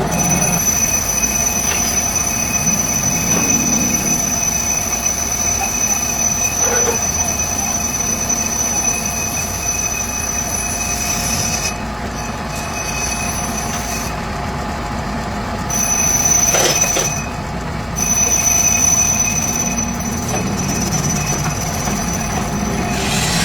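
Workshop machinery working metal with a steady high-pitched squeal over a running hum, breaking off briefly a few times past the middle.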